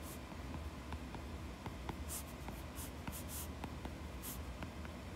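Stylus writing on a tablet's glass screen: several short, faint scratching strokes, most of them between about two and four and a half seconds in, over a low hum.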